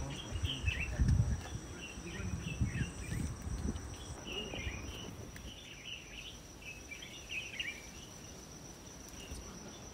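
An insect trilling steadily at a high pitch, with scattered short bird chirps. Low thumps and rumbling come in the first few seconds, then die away.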